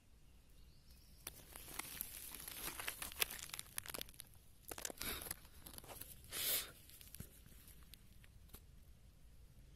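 Dry rustling and crackling close to the microphone, densest in the first half, with two short breathy puffs a little past the middle.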